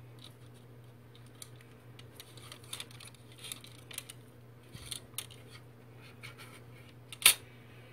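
Ribbon rustling and scratching against a bow loom as a knot is pulled tight and the bow is worked off the loom's prongs, with scattered light clicks. One sharp click near the end stands out above the rest.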